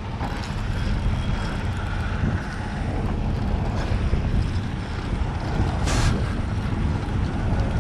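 Boat motor running steadily with a low rumble, with water washing past the hull. One short sharp click about six seconds in.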